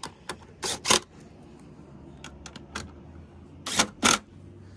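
DeWalt 20V MAX impact driver driving screws in short trigger bursts: two within the first second and two more near the end, with lighter clicks in between.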